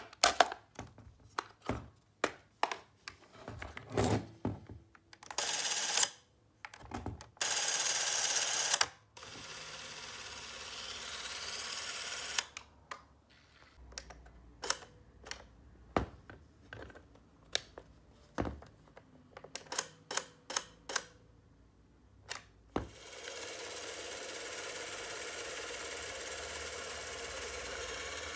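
Agfa Movexoom Super 8 cine camera being operated: a string of clicks from its switches and controls, and its motor running in several stretches, the longest from about two-thirds of the way in to the end.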